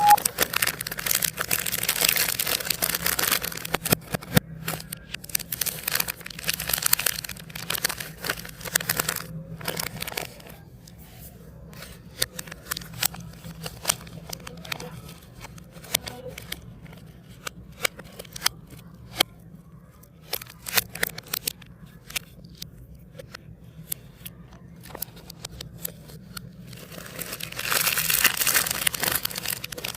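Plastic snack wrappers crinkling and tearing as biscuit and chocolate packets are opened, with a quieter stretch in the middle of scattered clicks and taps before the crinkling picks up again near the end.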